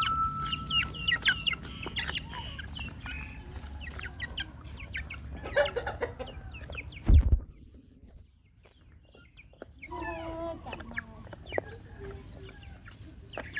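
A hen clucking while puppies eat from a shared pan of rice, with many small clicks of eating and pecking. One loud thump comes about seven seconds in, followed by a short lull.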